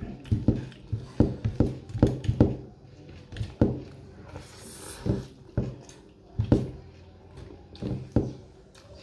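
Close-up eating sounds of a person eating rice with the hand: wet chewing and lip-smacking in quick, irregular clicks, thicker in the first half and sparser later, with a brief hiss about halfway through.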